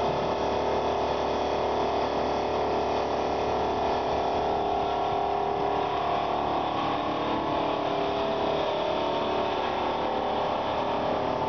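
Automatic polishing machine running steadily: electric motors humming and buffing wheels spinning against an aluminum pot, a constant sound made of several held tones.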